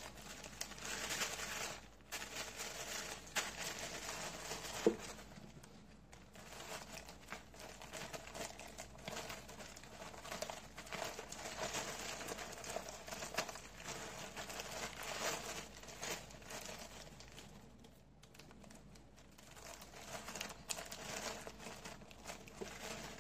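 Clear plastic bag crinkling and rustling on and off as it is handled and folded, with a small tick about five seconds in.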